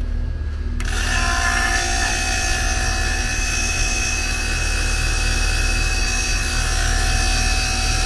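CPS 8 CFM vacuum pump running steadily; about a second in, a loud rushing hiss with a few steady whistling tones starts suddenly and keeps on as the pump draws air out of the air-conditioning lines.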